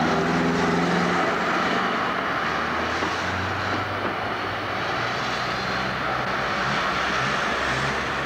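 City street traffic: trams and cars passing on the road, a steady mechanical drone with an engine hum underneath.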